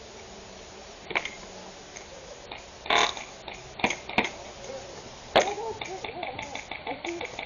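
Airsoft guns firing: a few single sharp cracks at uneven intervals, the loudest about five and a half seconds in, then a run of quick regular shots, about five a second, under distant shouting.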